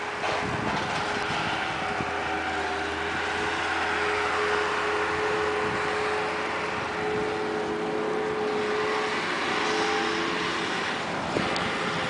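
A motor vehicle engine running steadily at a constant pitch, over a steady hiss of outdoor noise.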